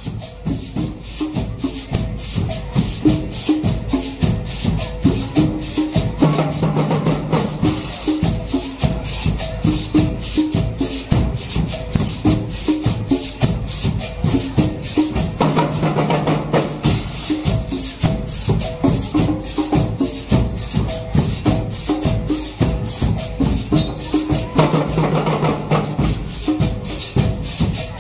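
Marching band drum line playing a fast cadence on snare drums and bass drums. A fuller, heavier phrase comes round about every nine seconds.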